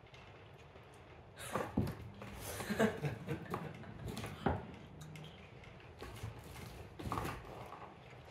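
Cat clawing and biting a crinkly dragonfly wand toy on a corrugated-cardboard scratcher: irregular rustling and scratching in bursts from about a second and a half in, with a few sharper scrapes.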